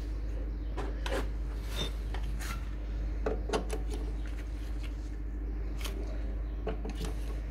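Socket wrench on a long extension bar working the gear-oil drain bolt of a Yamaha Fascino scooter's final-drive case: irregular metal clicks and scrapes.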